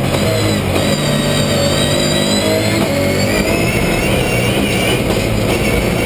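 Logan rallycross Supercar's engine running hard under racing load, heard from inside the cabin, with a high whine that slowly rises and falls.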